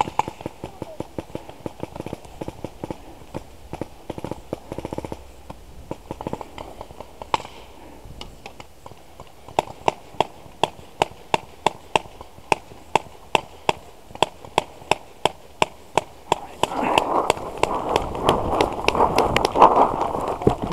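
Paintball markers firing: scattered shots at first, then a steady string of sharp pops about two or three a second from about halfway. Near the end comes a louder rustle of movement through tall grass.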